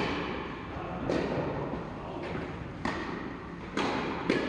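Tennis ball struck by rackets and bouncing on the court during a doubles rally: about five sharp pops, roughly a second apart, with a slight echo.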